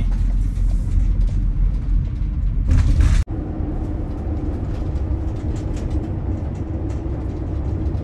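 Inside a moving Ford's cab: steady engine and road drone while driving. A brief rushing noise about three seconds in ends in a sudden break, after which the drone goes on steadier with a held low hum.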